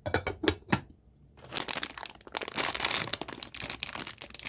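Plastic instant-noodle packet being crinkled and opened: a few sharp clicks at first, then dense crinkling from about a second and a half in.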